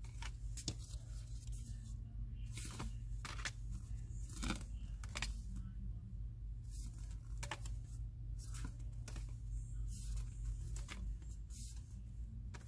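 Thick postcards being flipped through and shuffled by hand: irregular papery swishes and card-on-card slides and taps, over a steady low hum.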